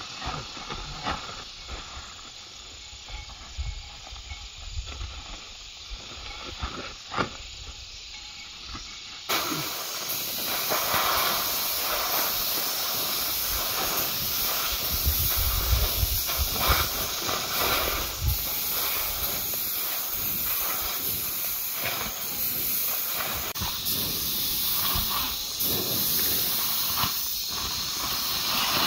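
Scattered light clicks and knocks over a low rumble, then about nine seconds in a loud, steady hiss starts abruptly and carries on.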